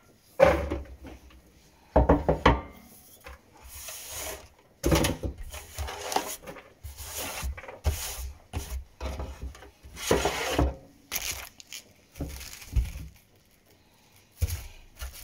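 Irregular knocks and scrapes of a cleaver and round wooden chopping board on a stainless-steel counter as shredded cabbage is scooped off and the board is moved and handled; no steady chopping rhythm.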